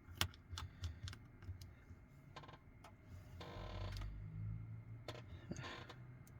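Light, scattered clicks and taps of small tools and tiny metal parts being handled while screws are put into a smartphone's internal plate, with a brief scratchy rustle a little past halfway.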